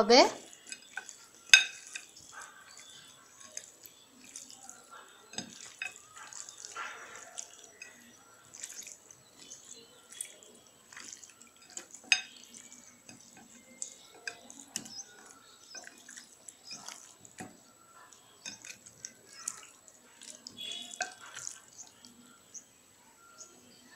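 Wet squishing and squelching of raw broiler chicken pieces being kneaded by hand with turmeric and salt in a bowl, in irregular small clicks and smacks. Two sharper knocks stand out, one about a second and a half in and one around the middle.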